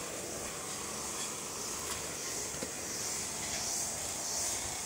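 A high-pitched chorus of forest insects, droning steadily and swelling and fading in slow waves.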